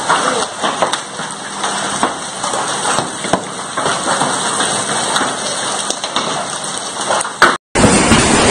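Hail and heavy rain pelting down: a steady hiss dotted with frequent sharp clicks of hailstones striking. About seven and a half seconds in, it breaks off for an instant and comes back louder and denser.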